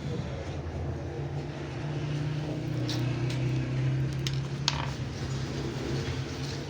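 A steady low engine hum that dips slightly in pitch midway, with a few light clicks.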